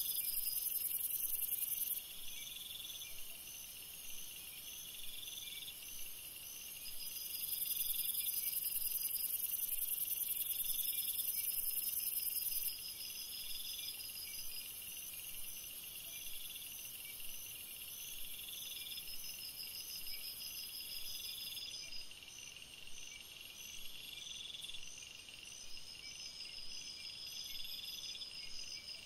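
Night chorus of crickets and other insects: a high, shrill buzz that comes and goes, loudest for a few seconds near the start and again in the middle, over a chirp repeated roughly every two seconds and a faster pulsing trill.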